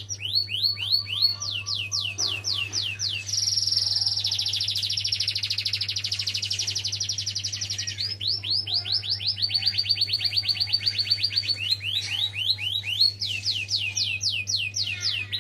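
Domestic canary singing a long continuous song: runs of quick repeated falling whistles, about four a second, then a fast rolling trill held for several seconds, then more runs of falling notes that speed up and slow down.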